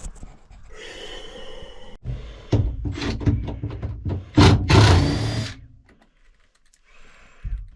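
Knocks, clunks and scraping as parts and tools are handled while stripping out a truck cab's interior, with a loud scrape about four and a half seconds in and a short lull near the end.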